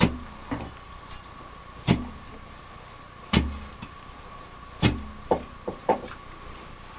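Digging tool striking wet gravel at the bottom of a hand-dug mining pit: four heavy blows about a second and a half apart, each with a dull thud and a short ring, with lighter clicks and scrapes between. A faint steady high tone runs underneath.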